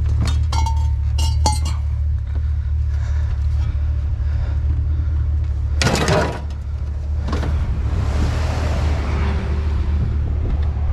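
Sharp clinks and knocks over a steady low rumble, with one louder clattering burst about six seconds in.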